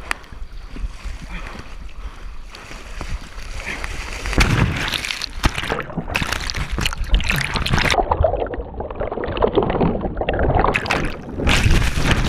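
Wind buffeting the microphone over the rush of giant breaking waves, growing louder from about four seconds in, with the sound briefly dulled near the end.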